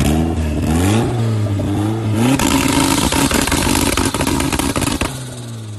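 Car engine with an open pipe standing straight up out of the engine bay, revved: a couple of blips in the first two seconds, then held at high revs with a loud rasping crackle for about three seconds, dropping back near the end.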